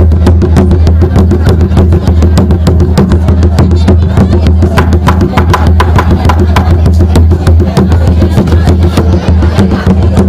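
Toraja gendang drums beaten with sticks in a rapid, steady rhythm for the Pagellu dance.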